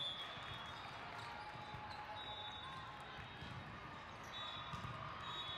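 Volleyball hall ambience: balls thudding and bouncing on the hard court floor, with a murmur of voices and a few short high tones from around the hall.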